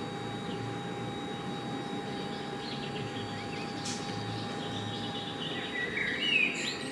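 Outdoor town ambience heard from an upper-floor window: a steady low hum with birds chirping, and one louder bird call about six seconds in.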